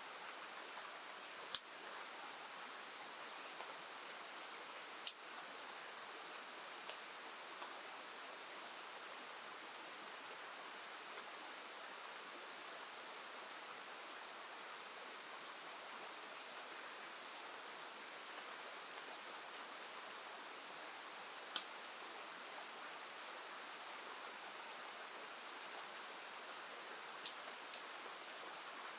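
Steady hiss of rain and flowing river water. A few sharp ticks stand out now and then, the clearest about 5 seconds in and near the end.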